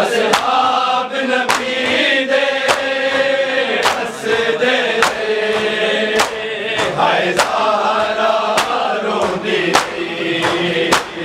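A group of men chanting a noha refrain together in drawn-out tones, with chest-beating matam striking in unison on a steady beat, a sharp slap about every 1.2 seconds.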